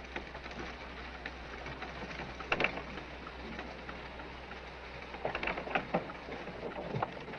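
Steady outdoor hiss with scattered knocks and creaks from a wooden river ferry loaded with a wagon and horses as it comes in to its landing, a few sharper knocks about two and a half seconds in and several more near the end.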